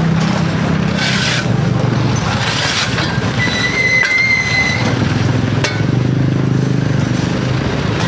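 A Hyundai backhoe loader's diesel engine idling steadily while steel shovels scrape debris off concrete. A brief high squeal comes midway, followed by a sharp click.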